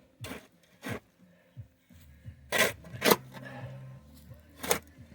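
Shovel blade scraping and digging into loose dirt in five short strokes, the loudest two close together midway. A low steady hum sets in under them partway through.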